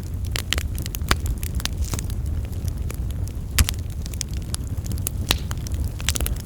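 Wood fire burning, with irregular crackles and pops over a low steady rumble; the loudest pop comes about three and a half seconds in.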